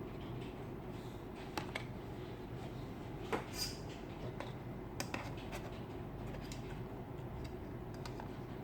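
Small robot vacuum cleaner running with a steady low motor and brush noise, with a few light clicks and knocks over its run, the clearest near the middle.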